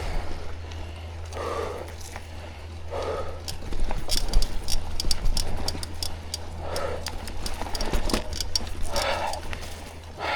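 Mountain-bike rider breathing hard on a climb, with heavy exhales every couple of seconds. A run of rapid ticks from the bike comes about four to six seconds in, over a steady low rumble.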